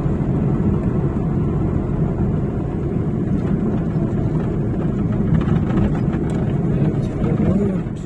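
Road noise from a moving vehicle: a steady low rumble of engine, tyres and air rushing past.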